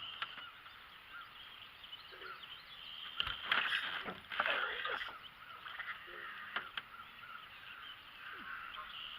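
Birds calling on and off around the water, busiest about three and a half to five seconds in, with a single sharp knock just before that.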